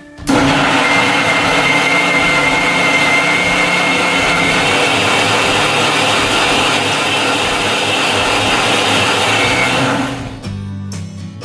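Electric mixer grinder running at full speed, blending strawberries with milk in its stainless-steel jar: a loud, steady motor noise with a thin whine that starts at once and stops about ten seconds in.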